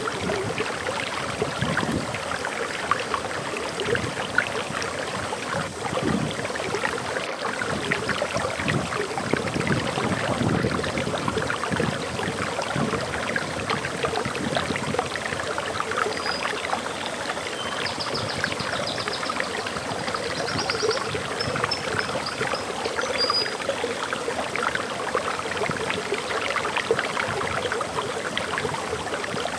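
Water flowing and splashing steadily over a waterfall. A bird chirps in short, high runs for several seconds past the middle.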